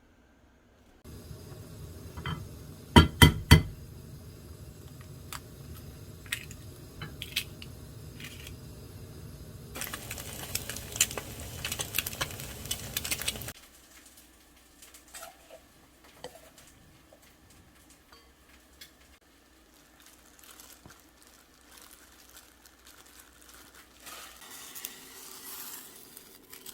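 Kitchen cooking sounds: utensils clinking and knocking against pots and pans, with three loud sharp knocks about three seconds in. A few seconds of hissing follow, then quieter clatter and a short hiss near the end.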